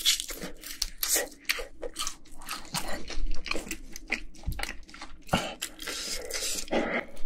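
Close-miked crunching and chewing of Korean fried chicken coated in sweet-spicy yangnyeom sauce: a steady run of crisp, crackling bites and chews.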